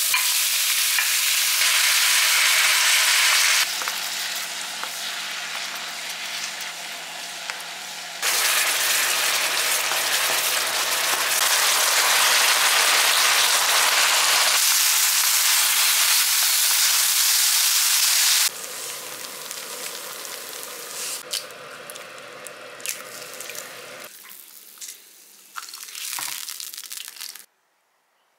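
Meat, sauce and rice sizzling in a nonstick frying pan, with a wooden spoon scraping and clicking against the pan now and then. The sizzle jumps between louder and softer stretches several times and stops suddenly near the end.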